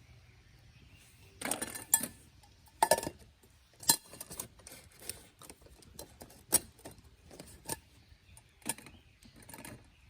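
Cookware and utensils being handled: about ten irregular clinks and knocks, some in quick pairs, with no steady rhythm.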